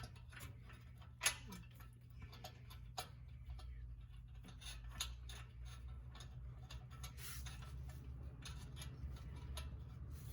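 Scattered metal clicks and taps from hand tools working on exhaust bolts, unevenly spaced, over a steady low hum.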